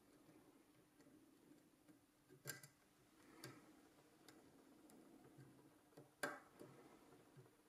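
Faint, scattered clicks of a lock pick working the pins of a 5-pin Yale night latch pin-tumbler lock under very light tension. The sharpest clicks come about two and a half seconds in and about six seconds in.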